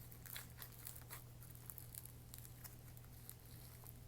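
Faint, irregular crunching and crackling of floam slime, foam beads packed in slime, being squeezed and stretched by hand.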